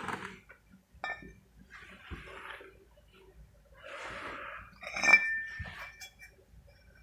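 Heavy steel bracket handled on a concrete floor: scraping and shuffling, a sharp metallic clink about a second in, and a louder ringing clank about five seconds in.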